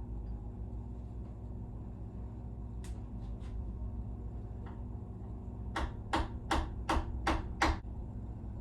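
Hammer tapping on a block of wood to drive the small oil galley expansion plugs into a small-block Ford engine block: a few scattered light taps, then a run of six quicker, evenly spaced strikes near the end, over a steady low hum.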